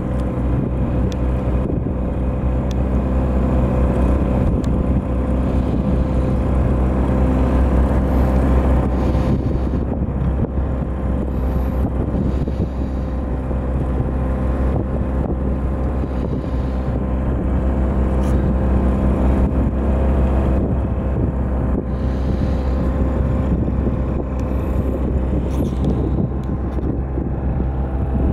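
Small boat's motor running steadily at a constant speed, with wind buffeting the microphone.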